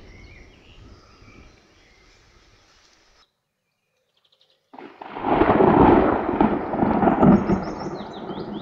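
Thunder: a low rumble fades away, the sound cuts out completely for about a second and a half, then a loud peal of thunder breaks and rolls for about three seconds before tailing off. Small birds chirp before the gap and again near the end.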